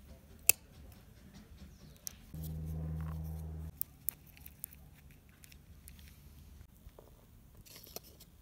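A sharp snip of side cutters clipping the head off a wooden matchstick about half a second in. This is followed by small clicks and rustles of handling the matchbox and tape. A low steady hum lasts for about a second near the middle.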